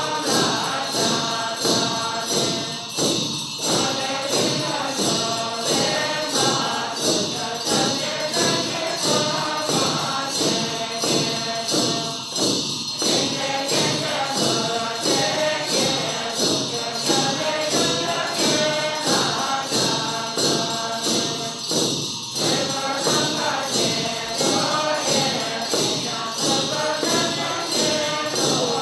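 A group chants a Buddhist ritual liturgy in unison over a fast, steady beat of hand percussion and continuous jingling bells. The voices break briefly three times, about every nine or ten seconds.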